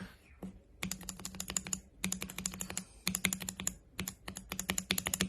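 Keycapped linear mechanical keyboard switches, an Outemu Silver among them, pressed rapidly in four bursts of about ten clicks each, played for their spring noise.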